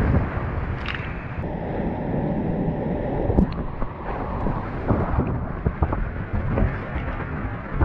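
Big whitewater rapid rushing around a kayak as it is run, with water and wind buffeting the microphone. A few short, sharp hits stand out over the steady rush.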